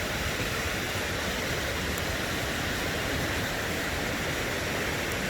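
Steady rushing roar of Scout Falls, a tall cascading mountain waterfall, as even falling-water noise.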